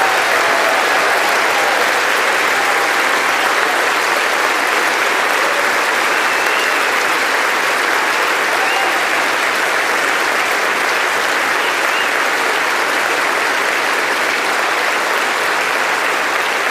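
A large audience applauding steadily and without a break, with a few voices faintly audible within it.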